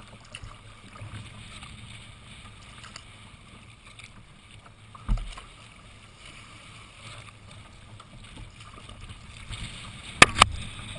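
Choppy water sloshing and splashing against a sea kayak's hull as it is paddled. A low thump comes about halfway through, and two sharp splashes come close together near the end.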